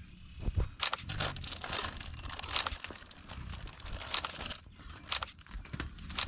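Feral burros being hand-fed from a snack bag: short, irregular bursts of crinkling and crunching, several within a few seconds.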